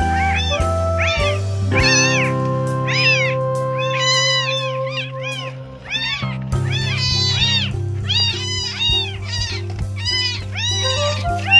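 Very young kittens meowing over and over, short high-pitched calls coming about one or two a second, over background music with long held notes.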